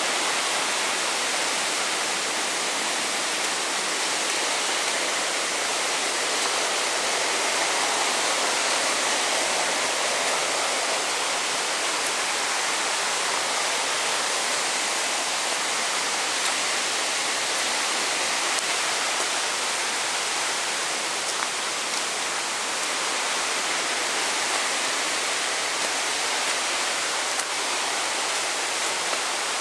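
Steady, even rushing noise, like running water from a stream or small waterfall, unchanging throughout.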